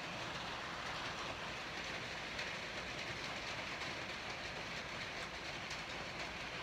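Heavy rain pouring down in a steady, even rush.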